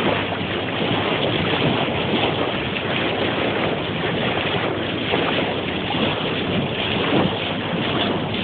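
Steady rush of seawater splashing along a moving boat's bow, with wind blowing on the microphone.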